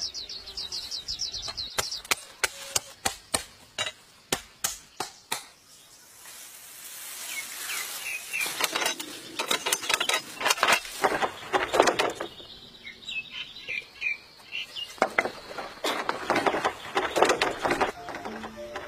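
Bamboo stalk being chopped with a blade: a run of sharp knocks over the first five seconds or so. Then a swelling rustle and crackle of bamboo leaves and branches as the cut stalk is handled, with birds chirping now and then.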